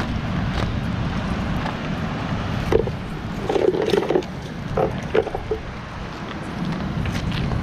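Wet, weighted cast net being handled and thrown for bait fish: a few short knocks and splatters, clustered about halfway through, over a steady rushing background.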